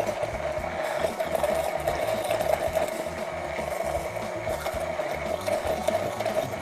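Hand-held immersion blender running steadily in a tall cup, blending a strawberry and balsamic vinegar dressing to emulsify it.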